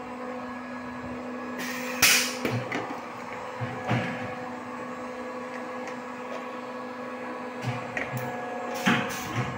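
Blow moulding machine running with a steady hum and a couple of fixed tones, broken by a loud clank about two seconds in and several lighter knocks and clacks later on.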